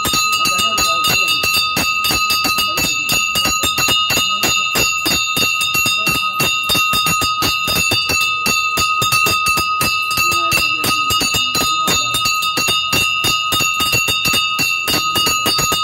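Temple bell rung rapidly and without pause, its rapid, even strikes keeping one bright ringing tone sounding steadily.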